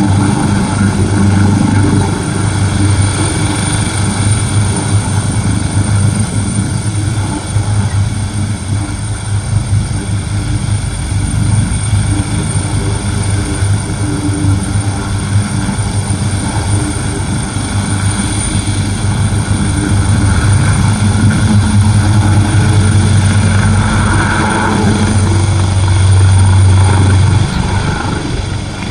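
AgustaWestland AW139 twin-turbine helicopter hovering low and lifting off: a steady, loud low rotor beat under a constant high turbine whine. The sound gets quieter near the end as the helicopter climbs away.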